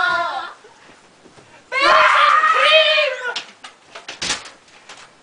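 A person's loud, high-pitched wavering cry, about a second and a half long, starting nearly two seconds in. It is followed by a few scattered knocks and one sharper thump.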